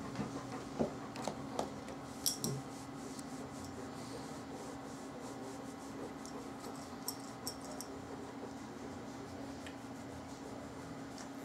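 A hand rubbing and scratching a large coonhound's fur at the neck and ears, a soft rubbing over a steady low hum, with a few light clicks.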